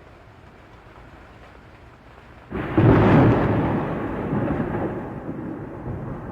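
A low, steady hiss of rain, then a sudden clap of thunder about two and a half seconds in that rumbles and slowly dies away.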